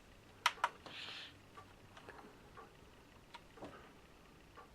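Two sharp clicks about half a second in, then a brief soft rustle and a few faint light taps: a small quadcopter frame being handled and set down on a scale for weighing.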